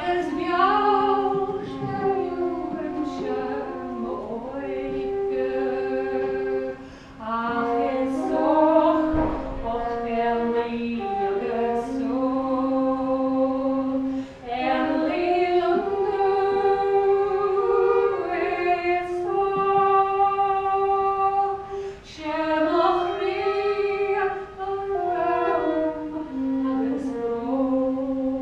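A woman singing a song, with a man playing along on a wooden Irish flute, the voice and flute lines sounding together in held, gliding notes. The song breaks off briefly a few times between phrases.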